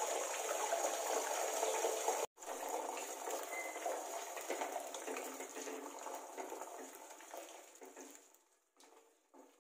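Beaten egg sizzling in hot oil in a stainless steel kadai, a steady hiss that breaks off for an instant about two seconds in and fades away over the last couple of seconds as the egg sets.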